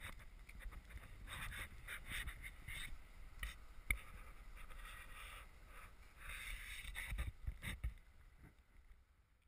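Wind gusting over the camera's microphone, a faint, uneven rush and rumble that swells and drops. A sharp click comes about four seconds in, and a few knocks near the end.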